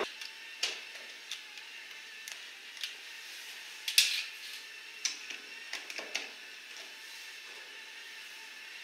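Scattered light metal clinks and knocks of hand tools on outboard motor mounting hardware, a few per second at most, with the sharpest clink about four seconds in.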